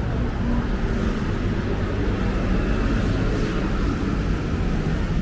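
Steady hum of city street traffic: scooters, cars and buses running at a busy intersection.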